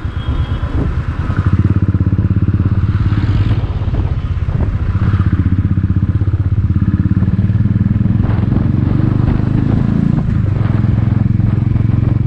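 Motorcycle engine running as the bike is ridden slowly through traffic: a steady low, pulsing engine note, with a few short knocks along the way.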